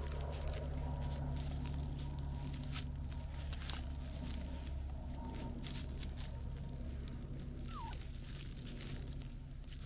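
Dry grass and pine needles rustling and crackling, with fur and trouser fabric brushing, as a calico cat rubs against a person's legs and is petted. Many quick irregular crackles over a low steady rumble.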